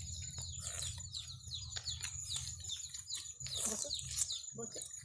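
Birds chirping busily: many short, quick falling notes, several a second, over a low steady hum.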